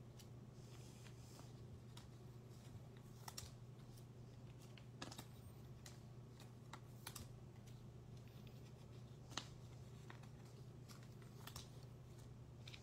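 Light, scattered clicks and snaps of baseball trading cards being shuffled and sorted by hand, the sharpest about nine seconds in, over a steady low hum.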